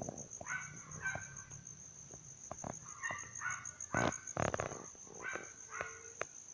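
Forest wildlife: a steady, high, pulsing insect trill with about eight short animal calls over it. A few clicks and louder rustles, most of them about four seconds in.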